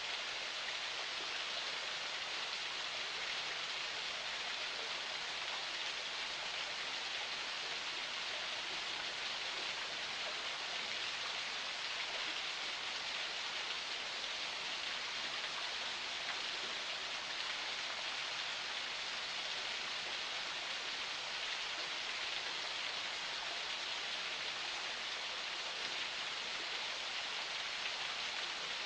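Water of a forest spring flowing steadily, an even splashing rush with no breaks or changes.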